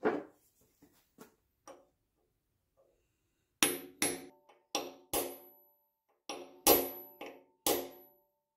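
Hammer tapping a brass punch to drive steel cylinder head dowel pins into a Chevy 305 engine block's deck. About eight sharp metallic strikes, each with a short ring, start about three and a half seconds in, after a few faint handling clicks.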